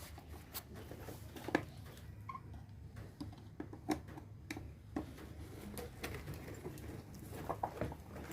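Scattered light clicks and taps, about a dozen of them, of hand tools and cable being handled during wiring work, over a steady low hum.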